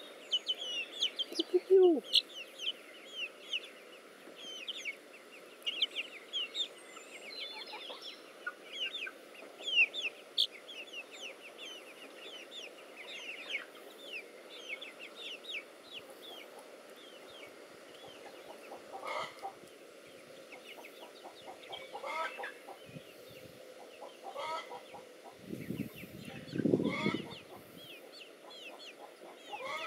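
Young chick peeping: rapid short, high, falling peeps, dense at first and sparser later, with a lower, louder chicken sound a few seconds before the end.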